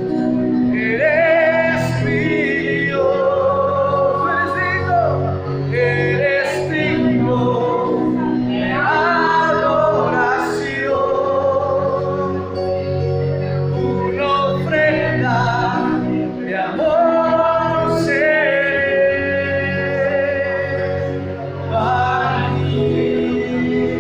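Worship song in church: singing with instrumental accompaniment, long held notes with a wavering vibrato over a steady low accompaniment.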